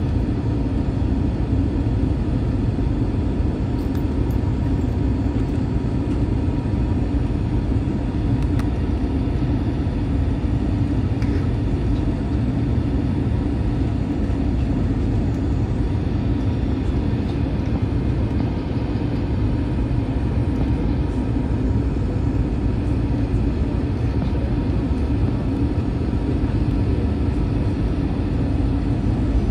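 Steady cabin drone of an Airbus A321 airliner in flight, the engines and rushing air heard from inside the passenger cabin, low and even throughout.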